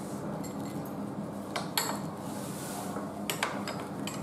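A few light clicks and clinks of a porcelain plate being handled while food is rolled on it, over a steady low hum.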